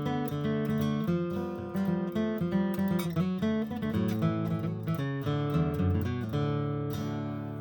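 Background music: acoustic guitar picked and strummed, with a bass line, gently fading near the end.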